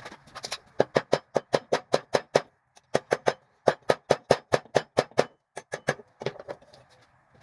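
Hammer blows on rebar over an anvil in quick, even runs of about five strikes a second, with a short break about two and a half seconds in, thinning to a few scattered blows near the end.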